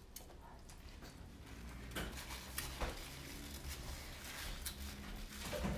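Scattered clicks and taps of seafood being handled and eaten over a plate, getting busier about two seconds in.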